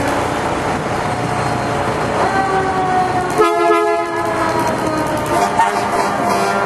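Fire engine air horn sounding: a steady, chord-like horn tone comes in about two seconds in and holds for several seconds, with a louder blast about three and a half seconds in, over steady background noise.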